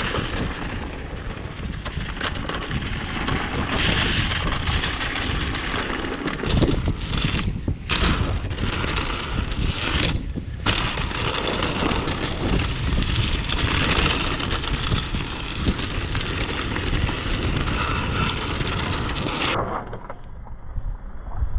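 Mountain bike riding fast down a dirt trail: knobby tyres rumbling over roots and rocks and the bike rattling over bumps, with wind buffeting the microphone. Near the end the sound turns muffled for a moment.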